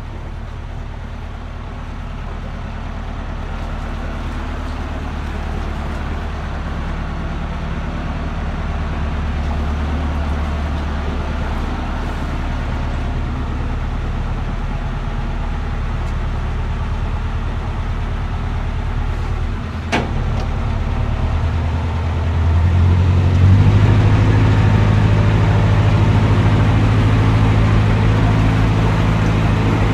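Narrowboat's 1.5 BMC diesel engine running steadily under way, getting gradually louder. A single sharp click comes about two-thirds of the way in, and the revs rise a couple of seconds later.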